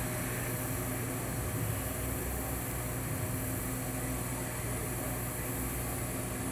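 TIG welding arc running steadily on carbon steel pipe: an even electrical hum with a soft hiss.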